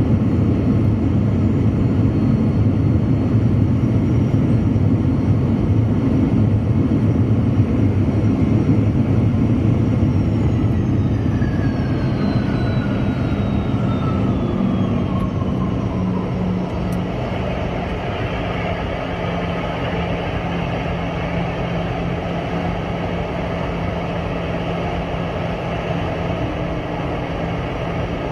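Boeing 717's Rolls-Royce BR715 turbofan engines running with a loud rumble. About ten seconds in, their whine falls steadily in pitch over several seconds as the engines spool down, leaving a steadier, slightly quieter hum.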